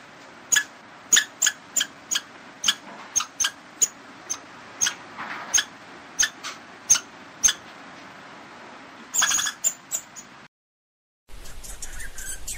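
Squirrel chirping: a rapid run of short, sharp, squeaky calls at about three a second, of the kind squirrels give as an alarm. The calls stop a little over halfway through, with a brief flurry a couple of seconds later. After a short cut to silence, a different, hissier outdoor background begins.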